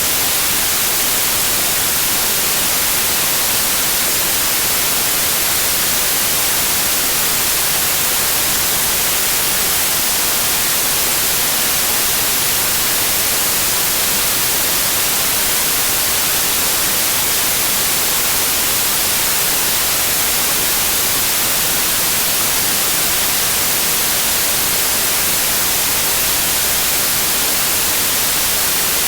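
Steady, unchanging white noise: an even hiss, strongest in the high end.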